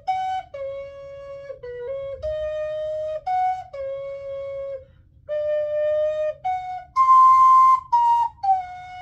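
Plastic ocarina playing a halting, amateur tune of held notes with short breaks between them, with a higher, breathier note about seven seconds in. Its tone is much like a recorder's.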